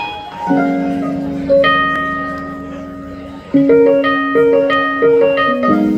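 Live band playing: sustained keyboard chords that change about half a second in and again around three and a half seconds, with short guitar and keyboard notes picked out above them.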